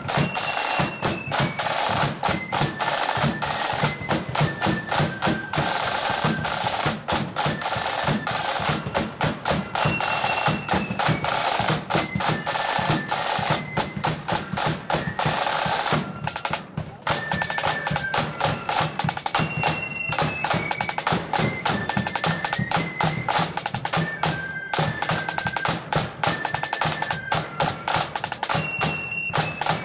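Marching flute band playing: a rank of snare drums beats fast rolls and rudiments under a high flute melody that steps from note to note.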